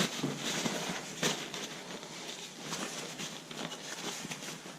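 Leatherman Supertool 300 multitool being folded shut by hand: a few sharp metal clicks as its oiled tools close into the handles, with soft handling noise between them.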